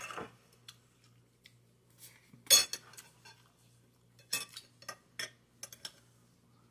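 Metal spoon and fork clinking and scraping on a glass plate and bowl while eating, in scattered short clinks, the loudest about two and a half seconds in and a run of them in the last couple of seconds.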